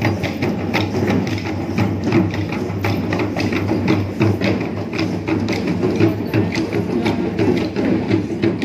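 Traditional procession drumming: a dense run of sharp drum strokes, several a second, over a steady low hum.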